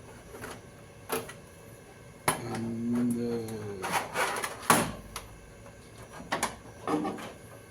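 Sharp clicks and knocks of equipment being handled, about five in all. Between about two and five seconds in there is a brief pitched hum-like sound that rises a little and then falls.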